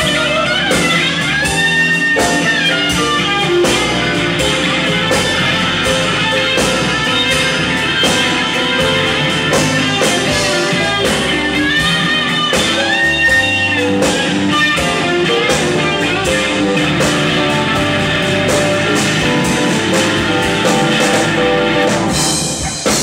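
Live blues-rock band playing: electric guitar lines with long, bent notes over bass and a drum kit.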